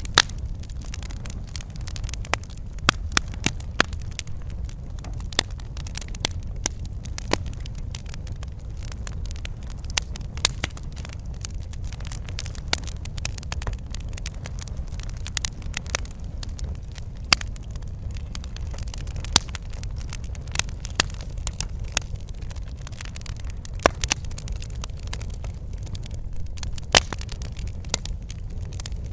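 Wood fire crackling in a fireplace: frequent sharp, irregular pops and snaps, a few of them louder, over a steady low rumble.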